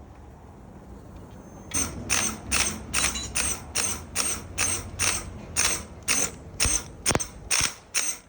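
Hand ratchet wrench being worked back and forth, a short rasping click-run on each stroke, a little over two strokes a second, starting about two seconds in.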